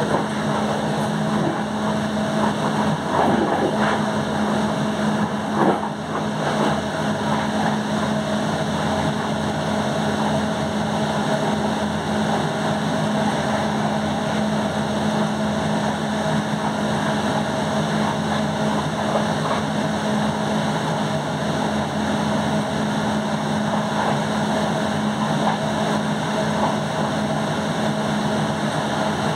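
Electric Eurocity train running at speed, heard from on board: steady rolling noise of wheels on rail with a constant low hum. A few short knocks about three to six seconds in as it runs through the points of the station throat.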